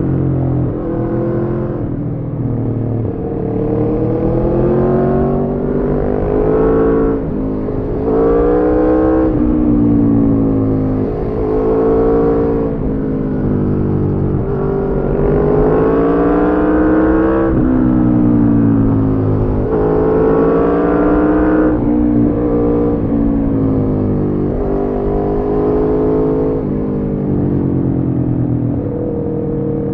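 Aprilia Tuono V4 sport bike's V4 engine through a de-catted Arrow slip-on exhaust, revving up and dropping back again and again as it is ridden through the gears on the road.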